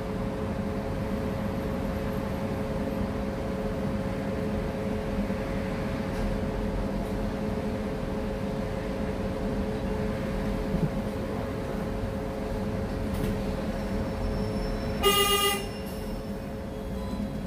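City bus running, heard from inside as a steady hum with a low, even drone. About 15 s in, a vehicle horn sounds once, a short honk of about half a second.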